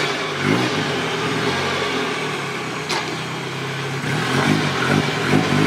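Mazda Miata's four-cylinder engine revving: a rev or two at the start, a steady run through the middle, then several quick throttle blips near the end.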